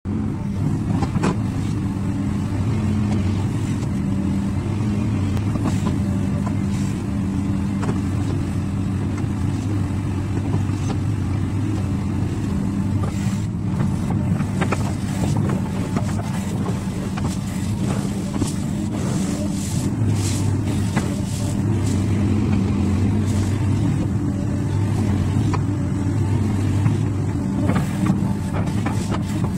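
XCMG crawler excavator's diesel engine running steadily under working load while the bucket digs, swings and dumps, with scattered clatter of crushed stone and soil striking the bucket and pile.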